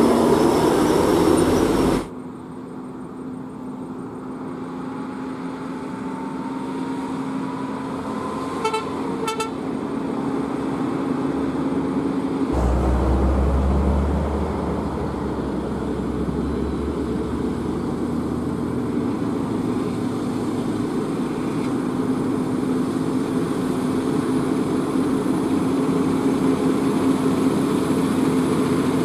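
Diesel engines of heavy trucks running on a road: first a truck passing close, then the engines of approaching trucks, growing slowly louder. A vehicle horn gives two short toots about nine seconds in, and a deep engine rumble comes in suddenly a few seconds later.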